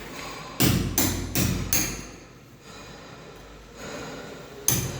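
Hammer blows: four quick strikes about 0.4 s apart, a lull, then another strike near the end.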